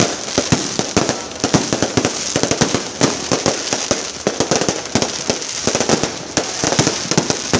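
Fireworks going off in a rapid, unbroken barrage of sharp bangs and crackles, several a second.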